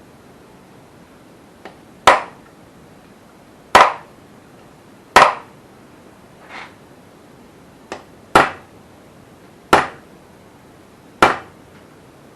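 Hammer striking a punch to mark the engine's pistons for their order of reassembly: six sharp metallic strikes about a second and a half apart, with a few lighter taps between.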